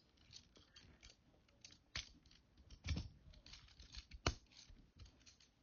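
Small plastic toy parts of Transformers figures being handled: scattered light clicks and taps, the sharpest about two, three and four seconds in.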